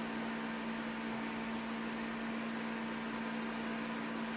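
Steady hum with an even hiss over it: background room tone.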